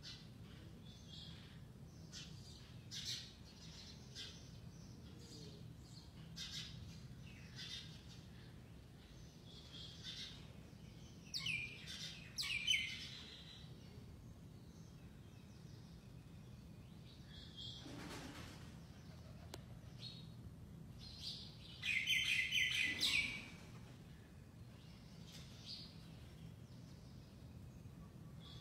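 Caged quail calling: soft, scattered short high chirps, with a louder quick run of repeated notes about three quarters of the way through.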